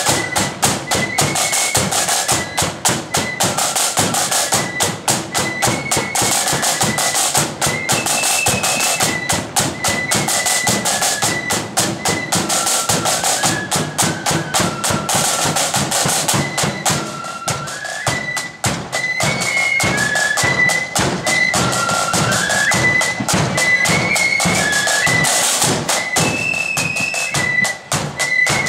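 Blood-and-thunder marching flute band playing a march. The flutes carry the melody over massed snare drums and a bass drum, with fast, dense drumming throughout.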